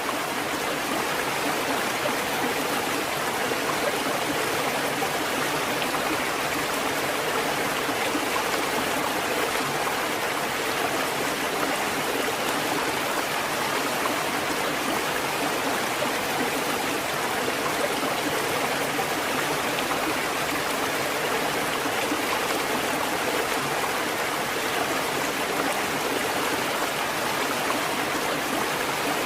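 Water fountain running: a steady, unbroken rush and splash of flowing water.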